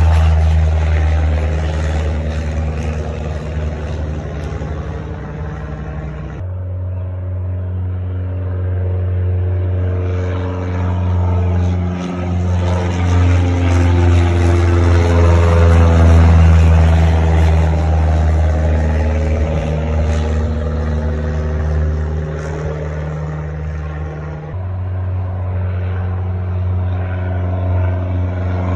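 Single-engine high-wing Cessna flying overhead, its piston engine and propeller droning steadily, with a low hum and a tone that slowly rises and falls as it passes. The sound changes abruptly about six seconds in and again near the end.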